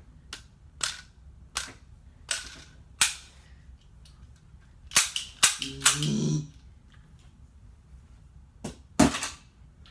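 Toy cap-gun revolver firing caps: a series of sharp cracks, five at a steady pace about two-thirds of a second apart, then two close together a couple of seconds later and two more near the end. A short low pitched sound follows the pair.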